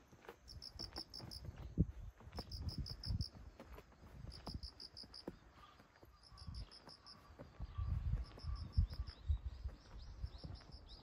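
A cricket chirping: short high trills of about five quick pulses, repeated every couple of seconds. Under it come irregular low thuds and rumble from walking with the phone, loudest about two seconds in and again near eight to nine seconds.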